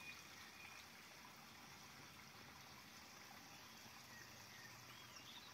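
Near silence: a faint, steady outdoor hiss beside still pond water, with a few faint high chirps.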